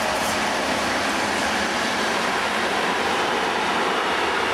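Freight train passing, hauled by a DB class 143 electric locomotive: a steady rolling noise of wheels on rail as the locomotive and then a string of gas tank wagons go by.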